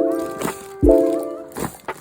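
Background music: plucked string chords, ukulele-like, struck about once a second with a low thump on each beat, each chord fading before the next.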